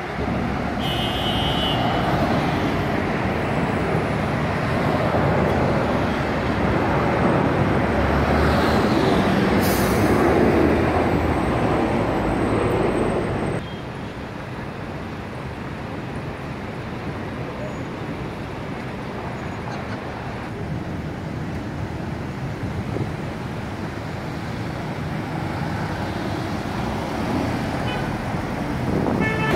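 Street traffic: cars and a city bus passing with engine and tyre noise. There is a short high beep about a second in and a brief hiss about ten seconds in. About fourteen seconds in it drops to a quieter, steady traffic sound.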